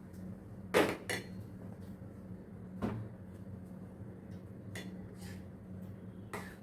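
Metal kitchen utensils clinking and knocking against a cooking pot: about six separate knocks, the loudest about a second in, over a faint steady low hum.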